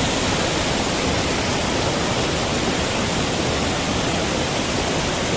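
Steady rushing of a mountain stream tumbling over small waterfalls, an even wash of water noise with no break.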